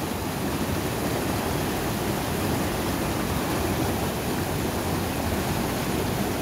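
Swollen monsoon mountain river rushing over rocks in whitewater rapids: a steady, dense rush of water.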